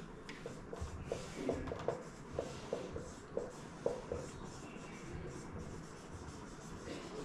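Marker pen writing on a whiteboard: a run of short, faint strokes that thins out after about four seconds.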